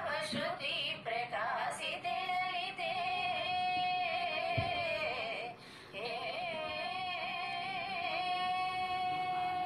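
A woman singing a Hindu devotional melody in long held notes with wavering ornaments. The voice drops out briefly about five and a half seconds in, then holds one long steady note.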